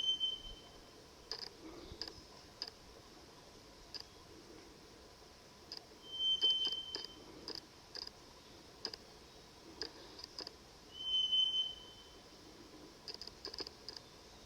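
A single pure, level whistled note, under a second long, repeating about every five seconds, with scattered faint clicks between. The caller is unidentified and may be a wild bird.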